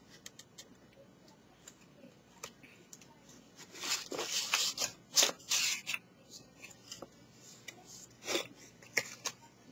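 Cardstock and adhesive strip handled by hand: faint ticks at first, then from about four seconds in a spell of paper rustling and crinkling with a few sharp snaps, and two more short crinkles near the end.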